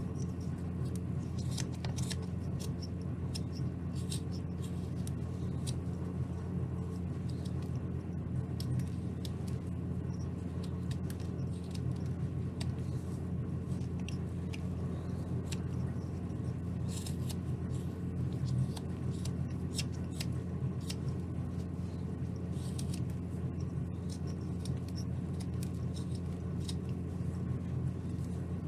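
Carving knife paring shavings from a basswood block: short, crisp scraping cuts at irregular intervals, over a steady low hum.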